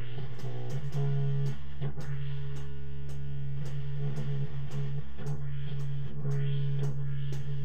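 Instrumental break in a live jam: guitar playing over a strong, held low bass note, with a steady run of short percussive ticks.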